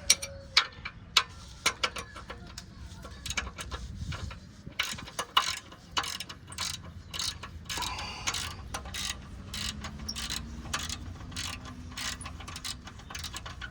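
Ratchet wrench clicking in short, irregular runs as it backs out the last bolt on an exhaust downpipe. The clicks come thicker in the middle stretch.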